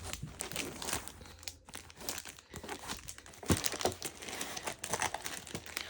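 Packaging crinkling and rustling as planner inserts are handled, with a couple of sharper clicks partway through.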